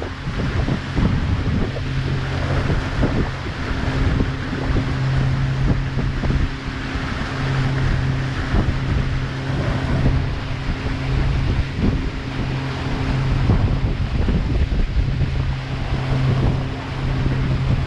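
A river water taxi's engine runs steadily underway with a low, even hum. Wind buffets the microphone and water rushes past the hull.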